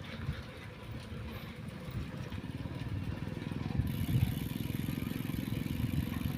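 Wind rumbling and buffeting on the microphone during a bicycle ride, a steady low rumble that gets a little stronger about four seconds in.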